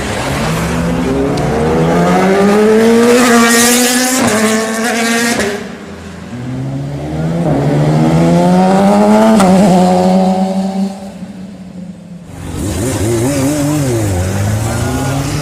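Four-cylinder sport motorcycles accelerating hard, engine pitch climbing steadily. One run climbs for about four seconds and cuts off abruptly, a second climbs and fades near the end of its pull, and after a short lull an engine revs up and down.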